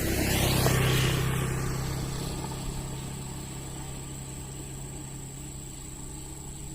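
A motor vehicle passing close by, loudest about a second in, then its steady engine hum slowly fading.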